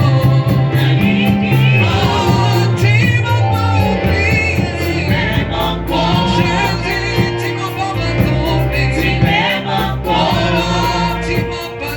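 Gospel song: voices singing over a band with a moving bass line and a steady beat of high ticks.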